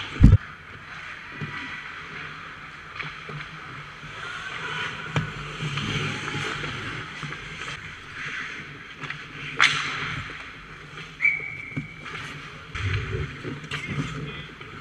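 Ice hockey play heard from inside the goal: skate blades scraping the ice, with scattered clacks of sticks and puck. A heavy thump comes just after the start, a sharp crack near the ten-second mark, and a brief high tone about eleven seconds in.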